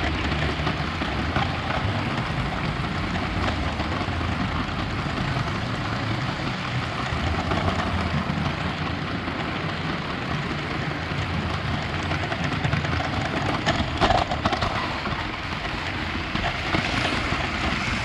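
Lego 9V train running along its track, heard from a camera riding on it: a steady noisy rattle of the wheels and motor on the rails, with a brief cluster of louder clicks about fourteen seconds in.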